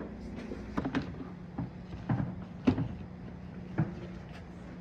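Irregular knocks and clunks of household items being handled and bumped, about five over a few seconds, with a steady low hum underneath from about a second in.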